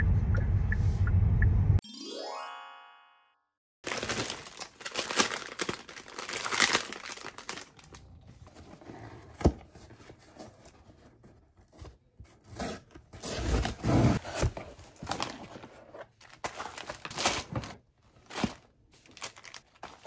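A short rising chime, then irregular rustling, crinkling and tapping noises from something being handled, under background music.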